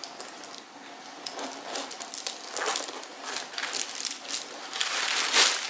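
Rustling and crinkling of a new handbag being handled and opened, in irregular bursts that grow busier, with the loudest rustle near the end.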